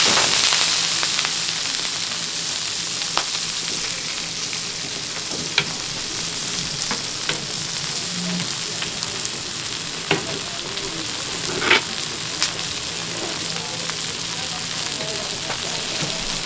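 Big Chinese leek dumplings frying in oil and water on a large flat round griddle. A loud hiss of steam at the start dies down over a couple of seconds into steady sizzling, with a few sharp clicks.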